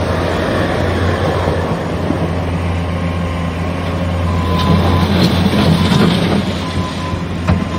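Bobcat S650 skid steer's diesel engine running steadily, getting louder for a couple of seconds about halfway through. A few sharp knocks sound near the end.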